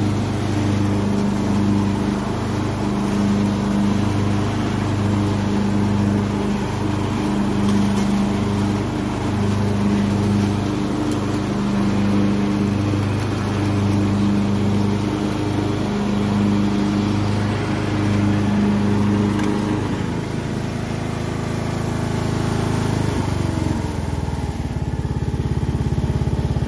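Craftsman riding lawn mower engine running steadily at speed with a regular waver, during a test run of a newly fitted belt. It is throttled down about 20 seconds in and settles to a lower idle a few seconds later.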